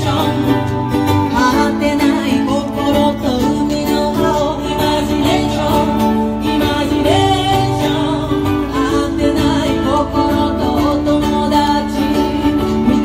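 Live band music, plucked strings to the fore, with singing.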